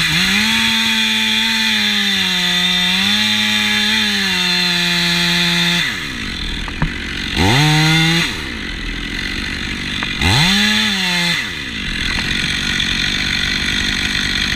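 Two-stroke chainsaw revved to full throttle and held there for about six seconds, its pitch sagging slightly under load as it cuts wood, then dropping back to a lower run. It is revved up briefly twice more.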